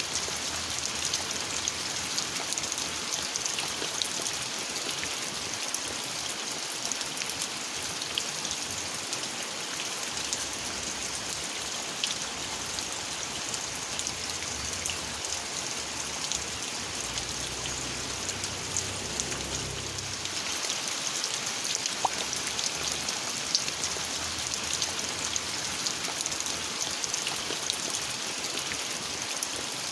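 Steady rain: a constant hiss with many individual drops clicking close by. A faint low rumble swells and fades about two thirds of the way through.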